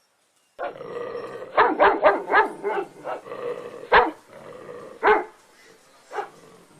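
Dog barking: a quick run of about five barks a second and a half in, then single barks about once a second.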